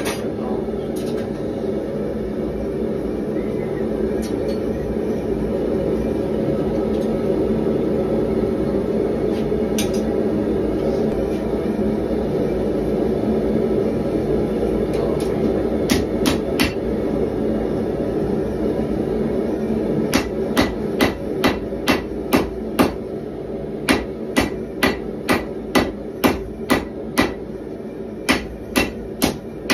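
Hand hammer striking hot 1095 carbon-steel bar stock on an anvil while forging a knife blade: a few single blows, then from about two-thirds of the way in quick runs of blows, about two to three a second, broken by short pauses. Under it a gas forge's burner runs with a steady rushing noise.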